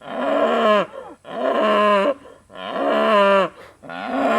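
Cattle mooing: four long moos about a second apart, each dropping in pitch at its end. The calls come from hungry cattle waiting to be fed.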